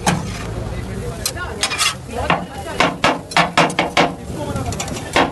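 Meat cleaver chopping cooked shawarma chicken on a hot flat steel griddle: sharp metal strikes in quick runs of about four a second, with steady sizzling and scraping between the runs.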